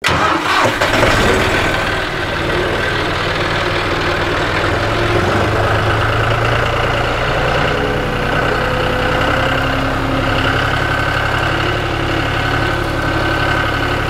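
John Deere utility tractor's diesel engine running steadily as the tractor pulls away towing a hay mower, with a slight shift in pitch about five seconds in.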